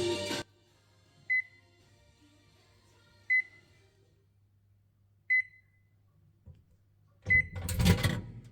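An electronic beeper giving four short, high beeps, evenly spaced two seconds apart, followed near the end by a loud burst of noise lasting under a second.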